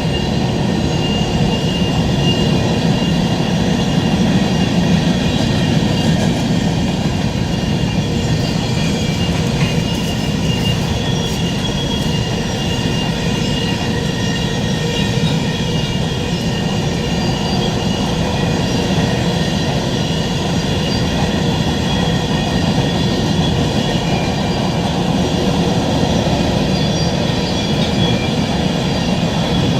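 Empty BNSF freight cars rolling past, a steady, continuous rumble of steel wheels on rail with thin, high wheel-squeal tones held over it.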